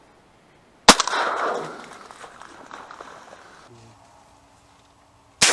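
Two shotgun shots, one about a second in and one right at the end, each trailing off in a long echo.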